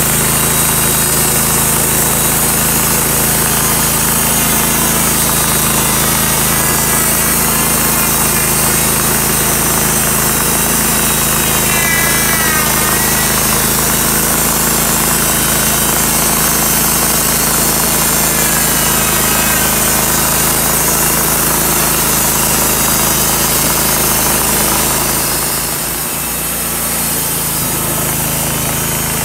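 Wood-Mizer LT35 hydraulic sawmill running under load as its band blade cuts a slab from a walnut log, a loud steady engine and saw noise. It drops a little in loudness about 25 seconds in.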